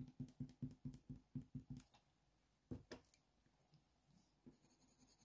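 Faint soft dabbing of a putty eraser on hot-press watercolour paper, about five taps a second, stopping about two seconds in, with a couple more taps a little later. Near the end a Polychromos coloured pencil starts short, quick fur strokes on the paper, about seven a second, with a light scratchy hiss.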